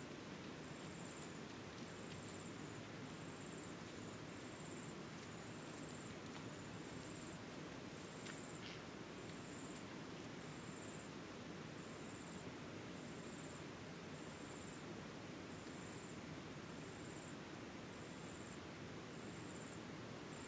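An insect chirping steadily, a short high-pitched chirp about once a second, over a steady low background hiss.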